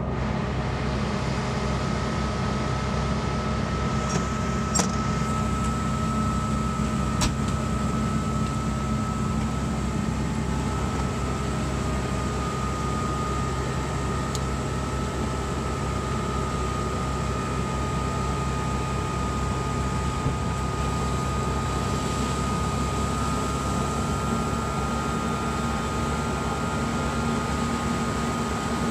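Fire engine's diesel engine and fire pump running steadily: a constant drone with a high whine over it, and a few sharp clicks about four to seven seconds in.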